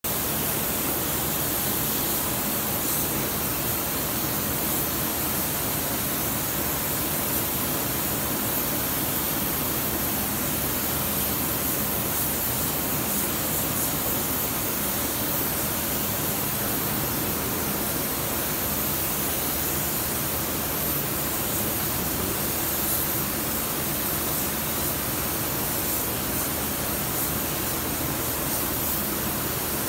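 Steady hiss of compressed air from a gravity-feed paint spray gun and its air supply while paint is sprayed, even and unbroken, with a faint low hum beneath.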